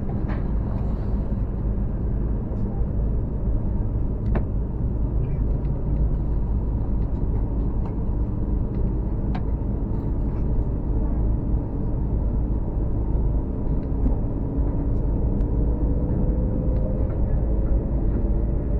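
Hokuriku Shinkansen train heard from inside the passenger car as it pulls away: a steady low running rumble, with a motor whine that glides up in pitch from about two-thirds of the way in as the train gathers speed. A few faint ticks come through.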